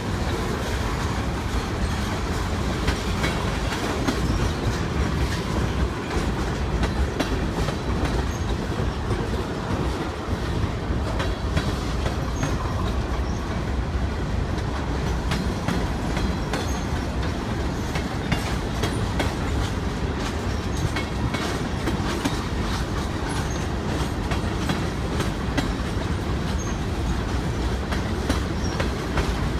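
Freight train cars, tank cars then covered hoppers, rolling past in a steady rumble, with wheels clicking and clacking irregularly over the rail joints.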